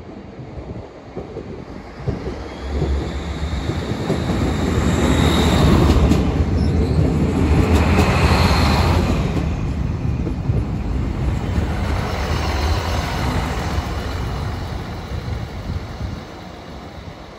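DB class 641 'Wal' diesel railcar running in close past the platform, its engine a low steady hum under the rail noise. The sound swells from about two seconds in, is loudest around the middle, and fades near the end.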